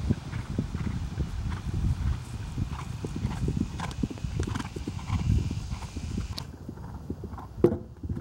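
Hoofbeats of a Trakehner gelding cantering on grass turf, a continuous run of dull thuds. There is one louder thump near the end, where he jumps a fence.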